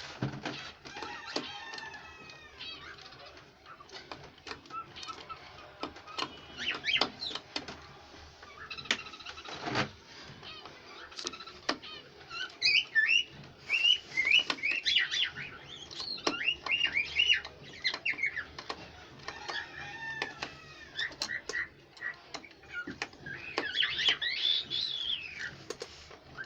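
Birds chirping and calling over and over, thickest in the second half, with scattered knocks and clatter from work on the cage's wooden frame.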